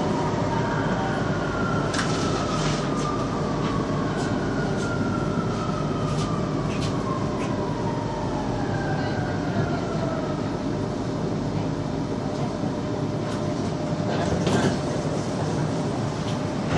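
Metro train running on the line: a steady rumble with scattered clicks from the wheels and track. Several whining tones glide downward in pitch over the first ten seconds or so.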